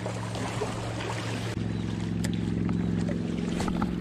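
A motorboat's engine running steadily out on the lake, a low even hum that grows louder about one and a half seconds in. A couple of light clicks come near the end.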